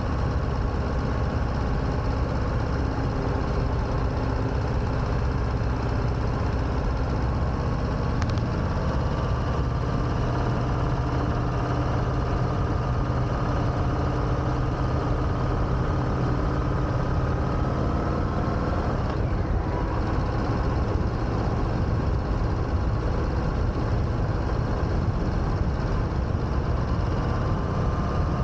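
2021 Harley-Davidson Sport Glide's Milwaukee-Eight 107 V-twin engine running steadily under way, with road noise. Its pitch creeps slowly upward for several seconds and then drops about two-thirds of the way in.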